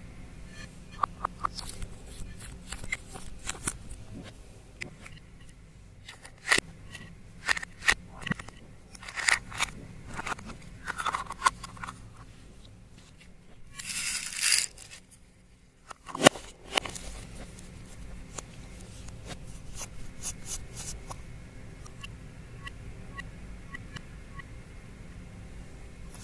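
Scattered clicks, crackles and scraping from hands working slime and makeup products, with a short hissing rush about halfway through and one sharp click just after it.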